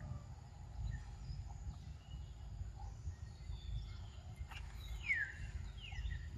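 Outdoor ambience: a steady low rumble with scattered bird chirps, and a couple of clear falling whistled bird calls about five seconds in.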